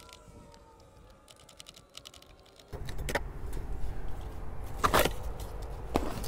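A few sharp clicks and taps of a hand tool and fingers working around a car seat's base and seat-belt mount, among dry leaves and debris. The first few seconds are quiet; then a low rumble starts abruptly under the clicks.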